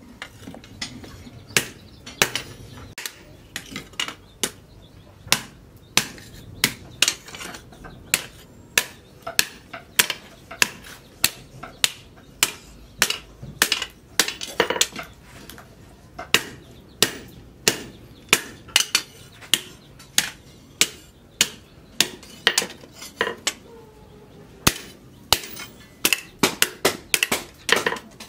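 Hand hammer striking hot steel, cut from a tractor's disc plough, on a round steel post anvil. About two sharp metallic blows a second, in runs with brief pauses, as the cleaver blade is forged.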